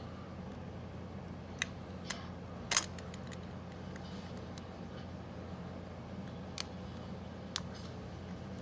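Small sharp metallic clicks of a lock pick and tension wrench working in a Bunker Hill padlock's keyway during single-pin picking: about five separate clicks, the loudest a double click nearly three seconds in.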